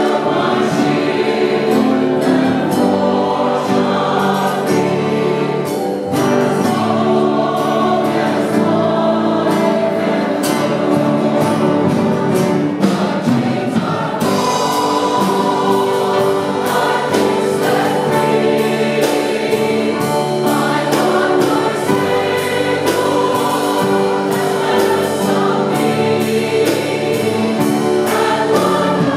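A church choir singing a worship song with a band: a lead singer with acoustic guitar, keyboard and drums. The drums keep a steady beat that becomes more prominent about halfway through.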